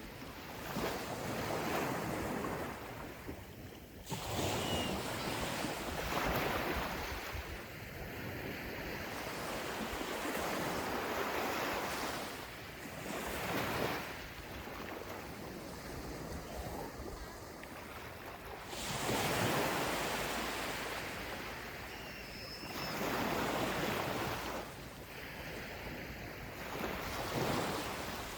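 Gentle ocean waves breaking and washing up a beach, the surf swelling and fading every few seconds.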